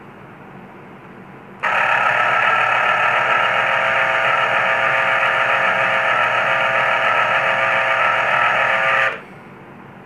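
Geepas GCJ5383 electric citrus juicer's motor running with a steady whine while a half fruit is pressed down on its reamer cone. The press-activated motor starts about one and a half seconds in and stops about a second before the end, when the fruit is lifted off.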